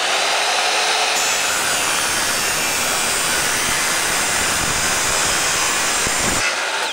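Small wood chop saw running, its spinning blade cutting through a thick aluminum bottle for about five seconds. Near the end the motor is switched off and winds down with a falling whine.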